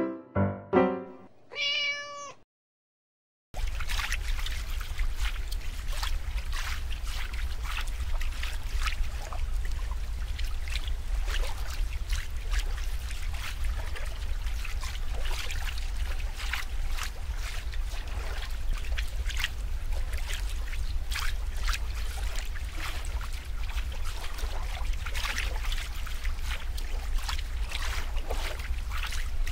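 A short electric-piano jingle of a few notes, then a second of silence, then steady running water with a low rumble and frequent small splashes. Occasional cat meows are mixed in.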